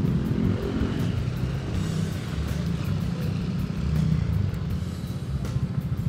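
Road traffic: motor vehicles running and passing, a steady low rumble.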